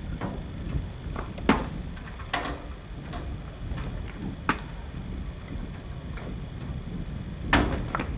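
Metal lid of a car trailer being pressed shut and its side latches fastened: a few sharp clicks and knocks, the loudest one near the end, over a low steady rumble.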